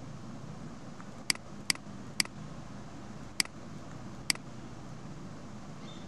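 Computer mouse button clicking five times, short sharp clicks spaced unevenly over a few seconds, over a steady low background hum.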